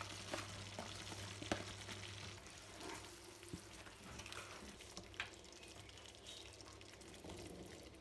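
Tomato sauce simmering faintly in a nonstick skillet while fresh spinach is stirred into it with a spatula, with a few light clicks of the spatula against the pan.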